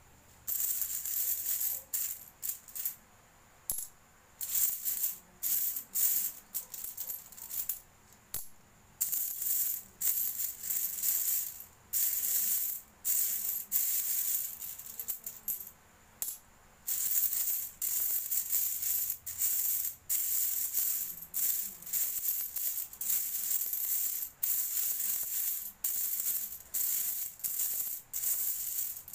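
A heap of coins scooped and sifted by hand, jingling and clinking in short bursts with brief pauses between handfuls.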